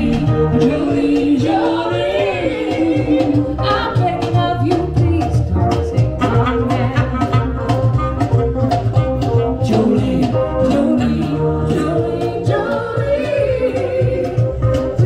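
A small live band playing a song: a singer's voice over keyboard, guitar and a steady cajón beat.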